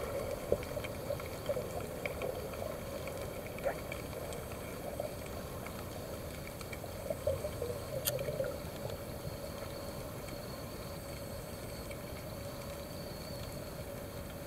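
Underwater ambience picked up by a camera in a housing: a steady hiss under a wavering hum that flutters irregularly for the first half and then settles. Scattered faint clicks run through it, with one sharp click about eight seconds in.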